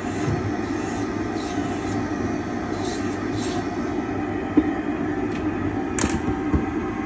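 Steady whirring of a dental lab trimming box's dust suction and handpiece motor, with a faint whine. A sharp click comes about four and a half seconds in, and a knock about six seconds in as the milled zirconia arch is set down on the turntable.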